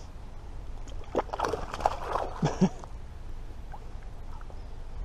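Water splashing and sloshing beside a kayak for a couple of seconds, starting about a second in, over a steady low rumble.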